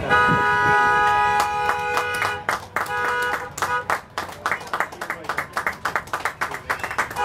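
Car horns sounding in several sustained blasts with a steady chord-like tone, then hand clapping from the crowd, densest from about halfway through.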